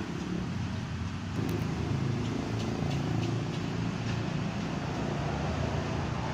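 An engine running with a steady low rumble, a little louder from about a second and a half in, with a few faint ticks over it.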